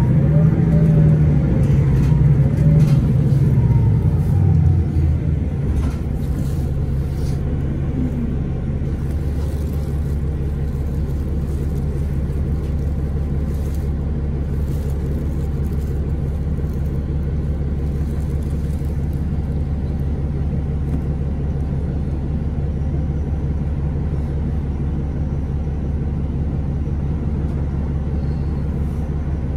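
Cummins ISL9 diesel engine of a 2011 Orion VII 3G transit bus, its pitch falling over the first five seconds or so as the revs drop, then a steady low drone at low revs.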